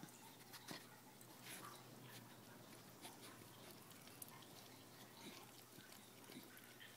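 A whelping dog licking and breathing: faint small wet clicks scattered through, over a low steady hum.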